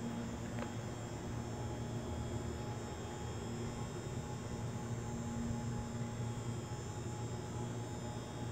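Steady low electrical hum over a faint even hiss, with one faint click about half a second in.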